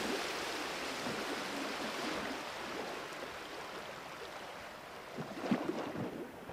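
Steady rushing noise of wind and sea surf at the shore, with a few faint knocks near the end.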